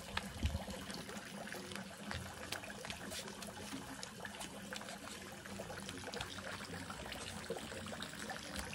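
Water trickling and splashing steadily into a swimming pool, with many small irregular splashes.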